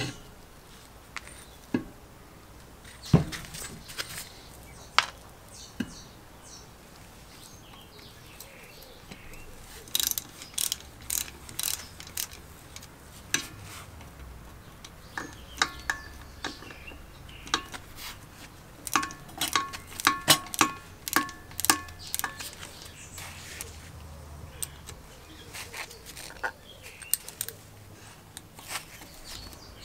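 Hand tools working on a small engine: scattered metal clinks and knocks, a few sharp ones in the first several seconds. After that come runs of rapid ratchet-wrench clicking with a light metallic ring as a ratchet and socket turn a bolt beside the crankshaft.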